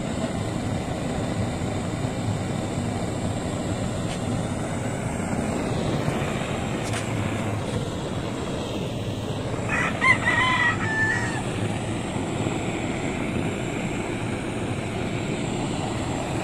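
LPG blowtorch flame burning with a steady rushing hiss as it singes hair off a carcass. A rooster crows once about ten seconds in.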